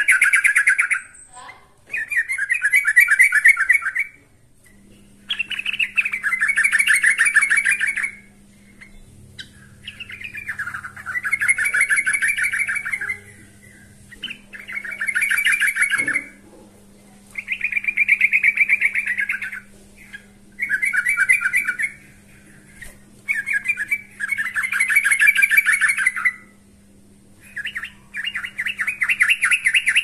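Yellow-vented bulbul singing in full voice: repeated phrases of rapid chattering notes, each about two seconds long, with short pauses between.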